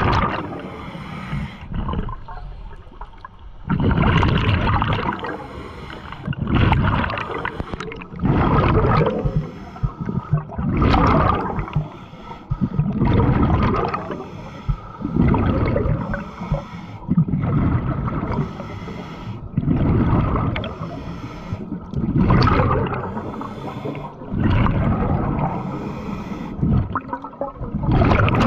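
Scuba diver breathing through a regulator underwater: a hissing inhale, then a gurgling rush of exhaled bubbles, repeating about every two to three seconds.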